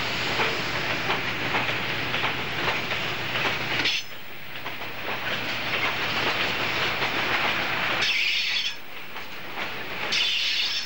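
Freight train of hopper wagons rolling past, wheels clattering over the rail joints. The sound drops suddenly about four seconds in, and short high-pitched bursts come twice in the later part.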